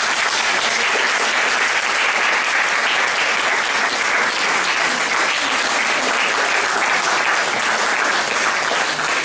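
Audience applauding, a dense, steady clapping throughout.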